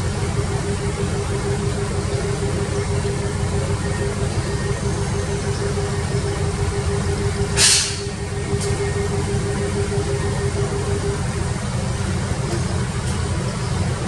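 Excavator's diesel engine running steadily, with a steady whine over it that stops about eleven seconds in. A short, sharp burst of noise, the loudest moment, comes about seven and a half seconds in.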